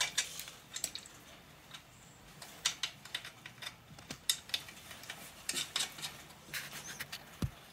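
Scattered small metallic clicks and taps of a nylon lock nut being fiddled by hand onto the mounting bolt of a motorcycle's side-mount number plate bracket, with a dull bump near the end.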